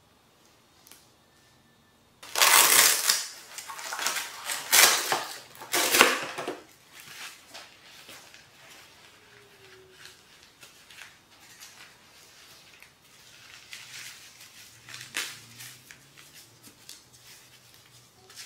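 Packaging being handled and opened: loud crinkling and rustling for about four seconds starting about two seconds in, then lighter rustles and small clicks.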